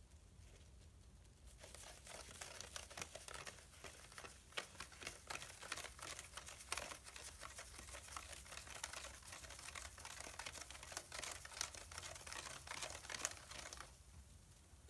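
Big Blue bath bomb fizzing in a stainless steel mesh sieve as it is swirled through bath water: a faint, dense crackle of tiny pops over a hiss. It starts about a second and a half in and stops about a second before the end.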